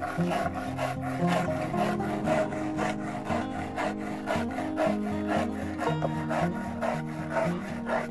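Hand stone rubbed back and forth over millet grain on a flat grinding stone, a steady rhythm of rasping scrapes about three a second as the grain is ground to flour. Instrumental music plays underneath.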